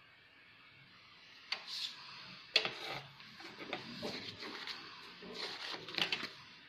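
Clear plastic protractor and ruler handled on paper: a sharp tap about two and a half seconds in, then scattered clicks and paper rustling as the ruler is laid down and shifted into place.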